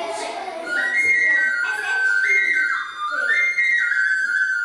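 High, pure whistle-like notes blown into something small cupped in both hands at the mouth, starting about a second in and stepping up and down between a few held pitches in a short tune.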